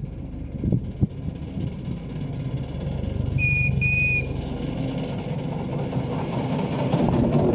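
7¼ inch gauge miniature steam locomotive approaching with its passenger train, a low rumble growing louder, with two short toots on its whistle about halfway through.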